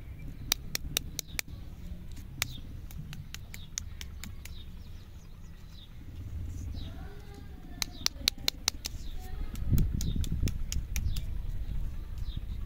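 Wrapped stick lollipops being handled and set down, giving clusters of sharp little clicks and taps, busiest about eight to eleven seconds in. Faint bird chirps sound behind them.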